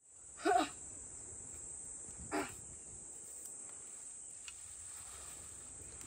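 Steady high-pitched insect chorus, like crickets, with two short calls about two seconds apart near the start.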